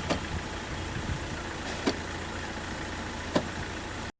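A car running steadily, with three sharp clicks or knocks spaced a second or two apart. The sound cuts off suddenly near the end.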